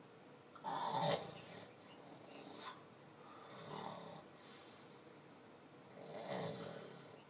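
A man snoring in his sleep: one loud snore about a second in, then three quieter snoring breaths spaced a second or two apart.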